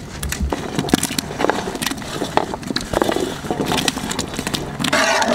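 Pieces of raw green mango pushed off a metal plate into thick curry: a run of irregular clatters and plops as they land.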